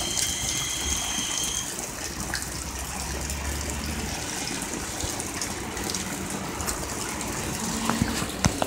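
Heavy rain falling in a steady hiss, with a car driving along the water-covered street adding a low rumble and tyre swish in the first few seconds. A few sharp knocks near the end.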